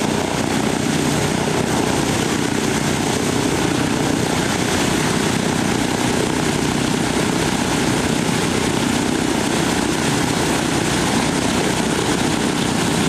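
Boeing B-17 Flying Fortress's four Wright R-1820 radial engines running together on the ground, propellers turning, a steady, even drone.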